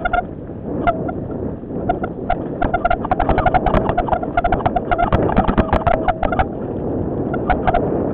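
Mountain bike ridden fast down a rough dirt trail: the bike rattles and clicks in rapid, buzzing bursts, over a steady rush of wind on the microphone.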